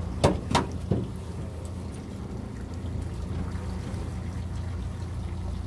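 A boat's engine running steadily with a low hum, with three sharp knocks in the first second.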